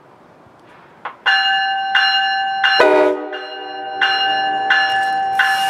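The approaching NJ Transit train's bell ringing steadily, struck about every 0.7 seconds, starting a little over a second in. About three seconds in, a blast of the five-chime K5LA horn comes in under the bell as a lower chord.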